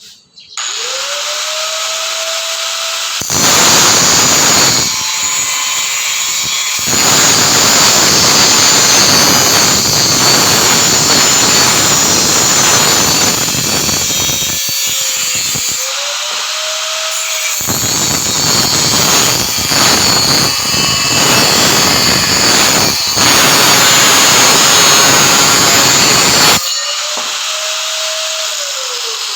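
An angle grinder spins up to a steady whine, then grinds or cuts metal in three long loud passes, free-running between them, and winds down as it is switched off near the end.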